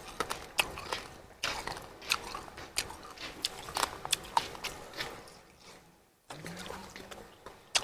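Close-up eating sounds: bites and chewing with many small sharp crunches and clicks, broken by a few abrupt cuts.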